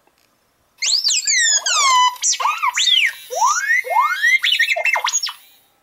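Sphero R2-D2 toy droid's speaker playing R2-D2's electronic beeps and whistles: a rapid string of falling and rising whistled sweeps and short warbles, starting about a second in.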